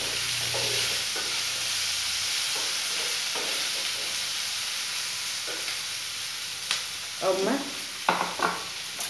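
Paneer chilli with onion, capsicum and green chillies sizzling in a non-stick frying pan over a gas flame as it is stirred with a wooden spatula. The steady sizzle eases a little, and a few short voice sounds come near the end.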